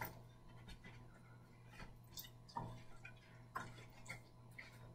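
Near silence: quiet room tone with a low hum and a few faint, scattered soft clicks.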